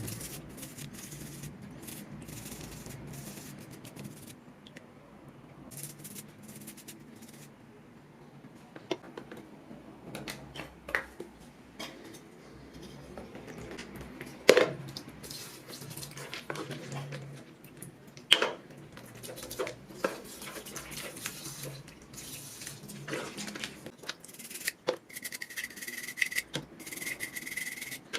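Close-up hand work on small parts: rubbing and scraping with scattered clicks and taps. A short high squeak comes twice near the end.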